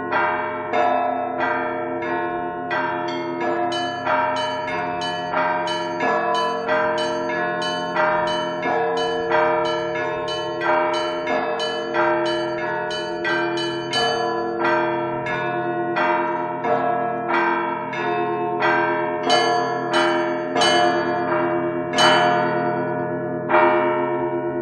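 Bells struck one after another in a steady sequence, nearly two strikes a second, each left ringing into the next. The last strike comes about a second before the end and rings away.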